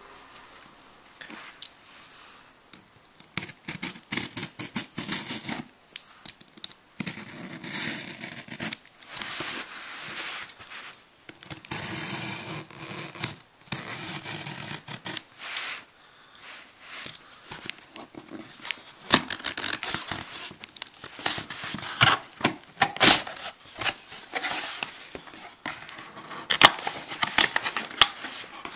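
Mailed package being opened by hand: several long stretches of tearing and scraping packaging, then many quick crackles and clicks as the wrapping is pulled apart.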